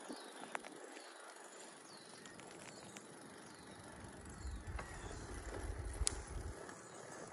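Bicycle rolling along a dirt path: a steady noise of tyres and riding, with a few sharp clicks and rattles. A low rumble comes in about halfway through, and faint high chirps repeat over it.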